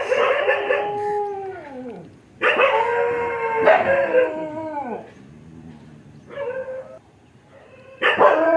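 Dog howling in long drawn-out calls, each sliding down in pitch as it ends: one fading out about two seconds in, a second from about two and a half to five seconds, a short one around six and a half seconds, and another starting near the end.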